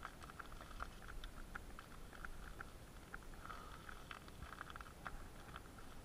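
Bicycle rolling over a forest floor of dry fallen leaves: faint, irregular crackling and ticking over a low rumble.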